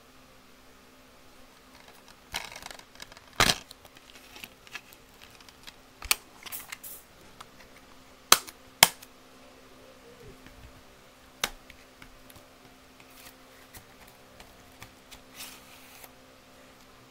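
Plastic DVD case being handled and opened: a scattered series of sharp plastic clicks and snaps with scraping rustles between them, the loudest two clicks close together a little past halfway.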